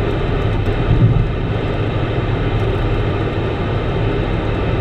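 Steady road and engine noise heard inside the cabin of a moving Mitsubishi car, with no voices coming over the CB radio; there is a slight swell about a second in.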